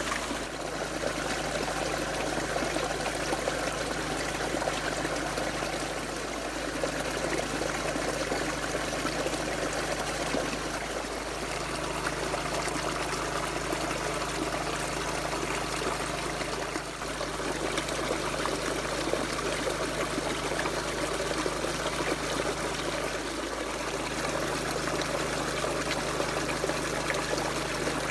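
Water trickling and running steadily over a stream weir, dipping briefly a few times.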